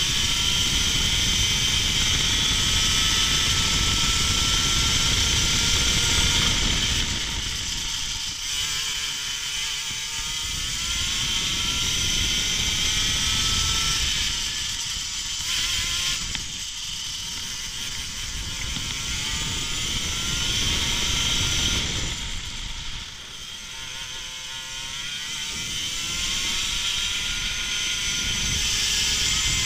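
Racing kart engine under full throttle, its revs climbing steadily along the straights and falling away as the driver lifts and brakes for corners, about 7, 16 and 22 seconds in.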